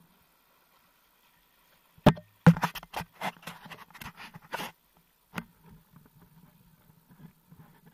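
Handling noise on the camera: a sharp knock about two seconds in, then a quick run of clicks and knocks for about two seconds, and a single knock a little later, as fingers bump and rub the camera housing. Faint low rustling follows.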